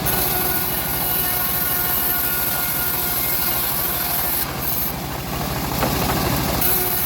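Engine-driven homemade bandsaw mill running steadily, its motor pulsing evenly, with a brief slight dip in level about four and a half seconds in.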